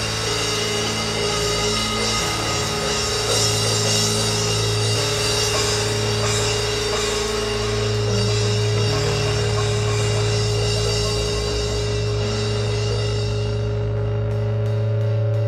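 A band playing a loud, droning piece: low sustained tones held under a dense wash of drums and cymbals. The cymbal wash thins out near the end.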